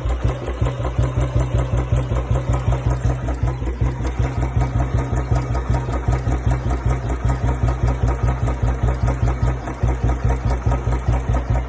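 Royal Enfield Bullet 350 Standard (BS4) single-cylinder engine idling with its heavy, even 'thump' or 'dug dug' beat, about four exhaust pulses a second.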